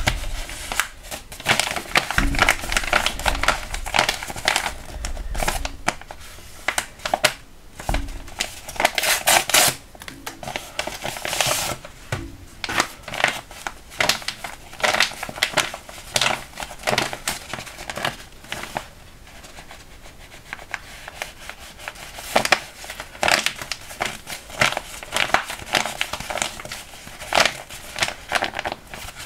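Paper crinkling and rustling in irregular crackly bursts as a handmade paper blind bag is opened and the paper pouch and paper squishy inside are handled and squeezed.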